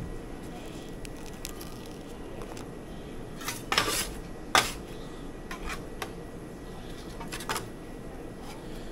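Steel candy scrapers clinking and scraping on a steel candy table while a batch of hot sugar is worked to even out its temperature. A few short clatters, the loudest about four seconds in, sound over a steady background hum.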